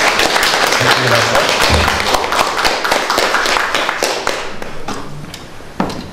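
Audience applauding just after an acoustic guitar piece ends, dense and loud at first and dying away about four to five seconds in, followed by a single sharp knock near the end.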